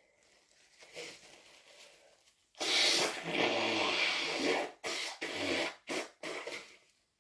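A person with a heavily congested, snotty cold blowing their nose: one long, loud blow starting about two and a half seconds in and lasting about two seconds, then several short blows in quick succession.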